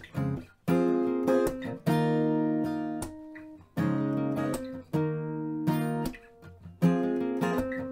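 Music: acoustic guitar strumming chords, each strum ringing out before the next.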